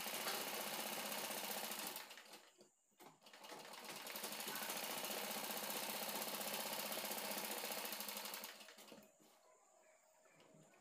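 Sewing machine stitching at a steady fast rate in two runs: it stops about two seconds in, starts again after about a second, and stops for good about eight and a half seconds in.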